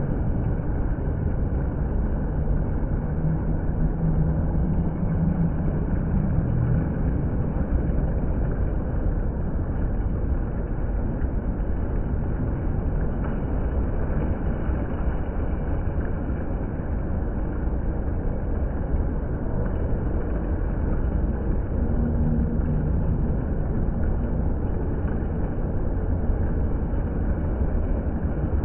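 Water fountain running: a steady, unbroken rush of falling and splashing water.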